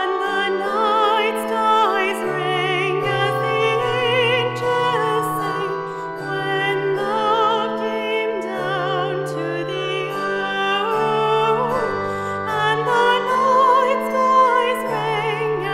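Handbell choir ringing sustained chords beneath a female solo voice singing with vibrato.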